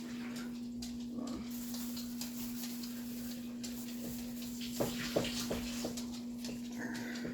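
Polyester fiberfill being pushed into a cloth doll body: soft rustling with a few short clicks about five seconds in, over a steady low hum.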